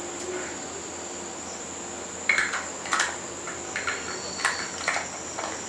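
Light clicks and taps of a Canon 50mm f/1.8 lens's plastic body being turned over in the fingers, about eight of them starting around two seconds in. A steady high-pitched whine runs underneath.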